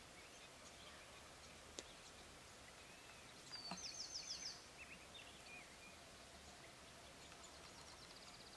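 Quiet outdoor ambience with a small songbird's rapid, high trill about three and a half seconds in, followed by a few faint chirps, and a fainter trill near the end. A single faint click comes just before two seconds.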